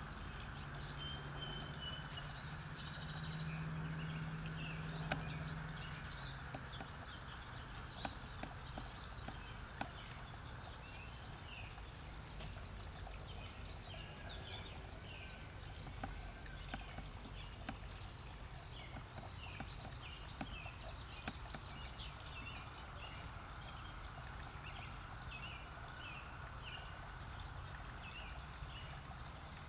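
Small tiered stone garden fountain trickling steadily while birds chirp and sing throughout. A low hum sounds under it for about the first six seconds.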